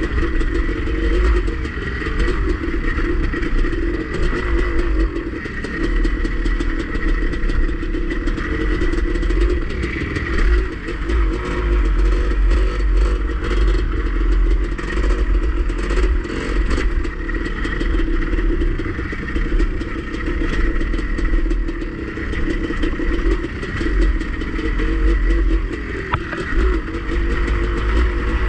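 Dirt bike engine running steadily under way, with small rises and falls in throttle, over a heavy low rumble.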